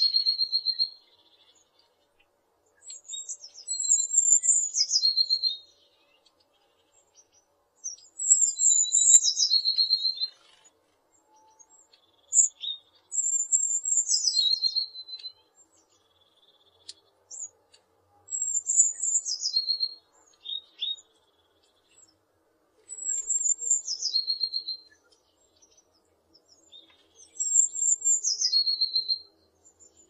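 Eurasian blue tit singing: a couple of high, thin notes that drop into a lower trill, repeated about six times with a few seconds' pause between songs.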